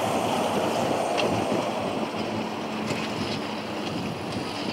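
An airliner's jet engines heard at a distance as a steady broad rumble, with wind buffeting the microphone.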